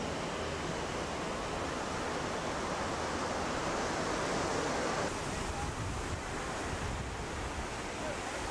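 Steady rush of ocean surf on a beach, mixed with wind buffeting the microphone.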